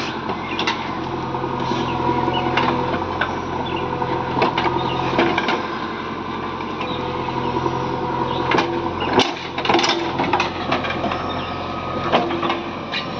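JCB 3DX backhoe loader's diesel engine running steadily, with frequent sharp clanks and knocks over it, the loudest cluster about nine to ten seconds in.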